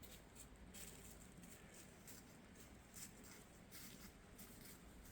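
Near silence: faint outdoor ambience with a few soft, irregular taps.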